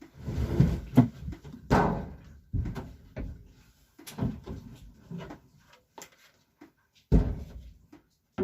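Rabbit hutch being handled: a run of irregular knocks, bumps and short rustles, with one loud knock about seven seconds in.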